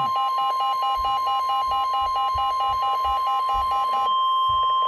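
NOAA Weather Radio warning alarm tone: a steady 1050 Hz tone that precedes a warning message. A rapid pulsing electronic alert beep sounds over it and stops about four seconds in, where a steady high beep takes its place.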